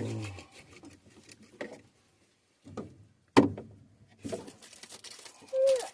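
A few scattered knocks and clunks, with quiet gaps between them; the loudest is a single sharp knock about three and a half seconds in.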